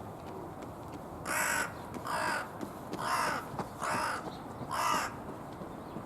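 Carrion crow calling five times in a row, short hoarse caws about a second apart. The voice is huskier than a large-billed crow's.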